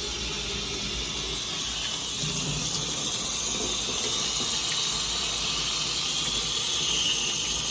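Water spraying steadily from a Minicle micro-bubble shower head.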